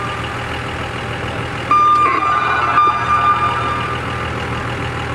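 A vehicle engine running at a steady idle. About two seconds in, a steady high electronic tone sounds over it for about two seconds, then cuts off.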